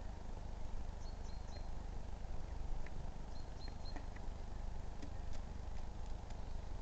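A bird calling: two short runs of three high, level notes, about a second in and again past three seconds, with a few faint ticks, over steady low background rumble and hiss.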